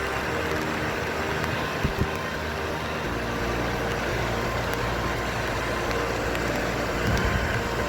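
A road vehicle's engine running steadily with road noise, and a couple of short knocks.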